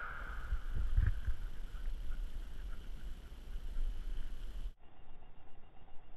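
Dying echo of a just-fired .50-calibre muzzleloader shot, fading over the first couple of seconds, with a few low thumps about a second in. The sound cuts off abruptly about three-quarters of the way through, leaving only faint background.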